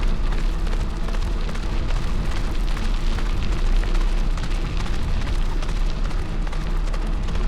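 Bike rolling along a trail behind a two-dog team: a steady rush of tyre and wind noise, with a constant low rumble of wind on the microphone.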